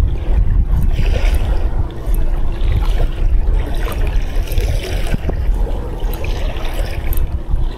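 Water sloshing and trickling, with wind rumbling on the microphone.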